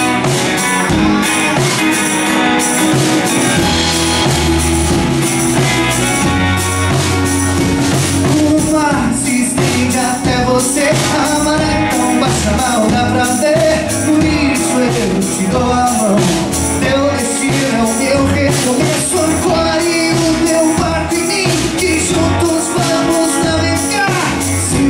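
Live folk-rock band playing, with violin, acoustic and electric guitars and a drum kit keeping a steady beat, and with singing.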